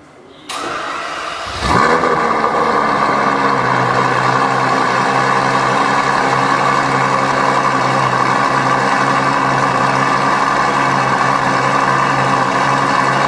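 Ferrari 812 Superfast's V12 starting up: about a second of cranking, then the engine catches with a loud flare a little under two seconds in and settles into a steady idle.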